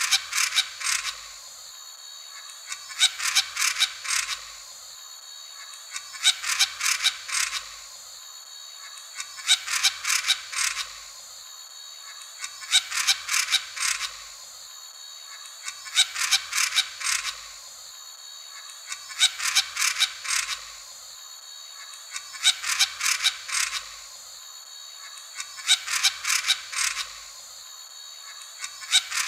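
Black-crowned tityra calling: clusters of about six to eight short, sharp notes, each cluster repeating roughly every three and a half seconds, over a steady high-pitched background hum.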